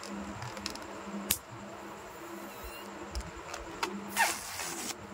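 Latex balloon handled by a hand: a sharp tap about a second in, then a short squeak of rubber rubbing near the end, the loudest sound, over a steady low hum.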